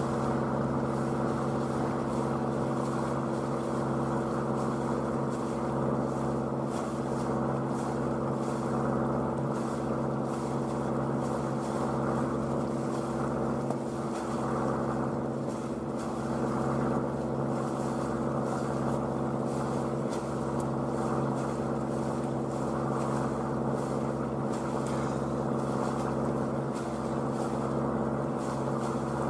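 Sailing boat's motor running steadily at an even pitch, with no change in speed.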